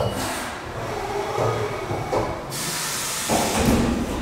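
Haas 5-axis CNC milling machine moving its axes: a steady hiss at first, turning into a heavier, lower rumble about three seconds in as the table travels away from the spindle probe.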